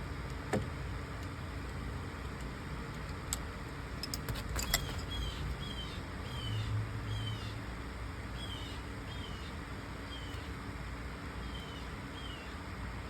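Steady fan hiss with a few sharp metallic clicks of tools in the first five seconds, then about a dozen short, high chirps, each falling in pitch.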